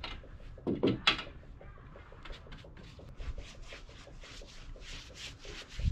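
Paintbrush rubbing wood stain onto deck boards in quick, short strokes, about three or four a second, with a louder pair of scrapes about a second in.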